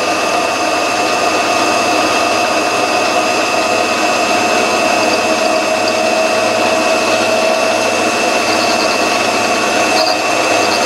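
Homemade tool post grinder's electric motor and grinding wheel spinning, with the mini lathe running: a steady machine hum carrying a high, even whine.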